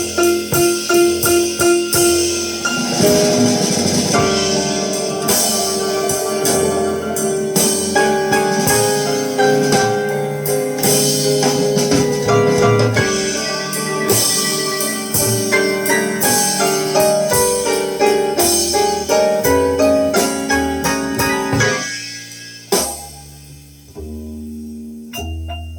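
Instrumental jazz recording playing: piano with percussion, starting with quick repeated notes, then full sustained chords, thinning out to a few sparse notes near the end.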